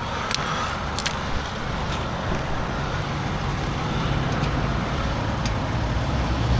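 Steady highway traffic noise from vehicles passing, with a few sharp clicks about a second in.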